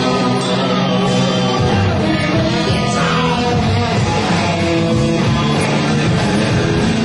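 Rock band playing live: electric guitar, bass and drum kit with cymbals, loud and continuous, with the bass line changing about one and a half seconds in.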